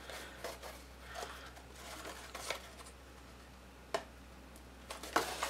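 Cardstock being handled and pressed together while gluing: light paper rustling and small taps, with two sharper clicks, one about four seconds in and one near the end.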